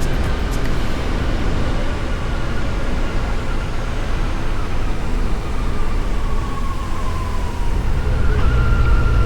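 Yamaha FJR1300's inline-four engine running under way, heard against a steady wind rumble. Its whine falls as the bike slows, then jumps up higher near the end, as after a downshift.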